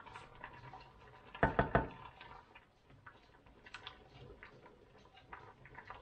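Kitchen utensil sounds: a quick run of about four knocks around a second and a half in, then light, scattered clicks and taps of a wooden spoon stirring tomato sauce in a stainless steel pot.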